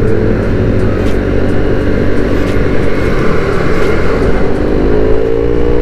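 Yamaha NMAX scooter's single-cylinder engine running while riding, with wind and road rush on the helmet mic. The engine pitch rises a little about four seconds in, then eases again.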